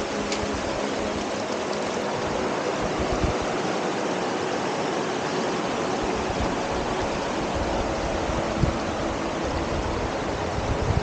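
Shallow mountain river rushing over flat rock slabs and small cascades, a steady rush of water. A faint hum fades out in the first few seconds, and low bumps of wind hit the microphone a few times later on.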